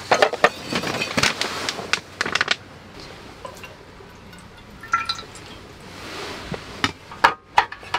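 Clinks and knocks of utensils and a stainless steel cup, then water poured from the cup into a black metal pan, with a few sharp clicks near the end.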